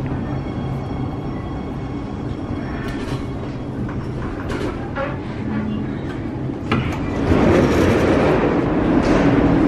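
Siemens Inspiro metro train running, heard from inside the car: a steady low hum with a faint high whine early on and a few clicks, growing clearly louder about seven seconds in.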